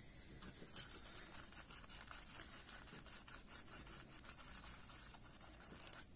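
Faint, quick scraping of a paintbrush stirring glitter into resin inside a small cup, a run of light bristle scrapes starting just under a second in.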